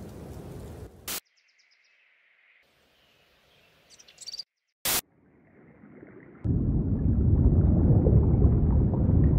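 Sound-design ambiences cut apart by short harsh bursts of noise. A low wind-like rush gives way to near quiet with a few faint high chirps, then from about six and a half seconds a loud low rumbling rush.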